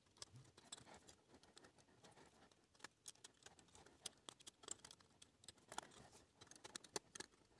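Near silence with faint, irregular small clicks and ticks from metal tweezers and fingers working LED leads into the holes of a circuit board.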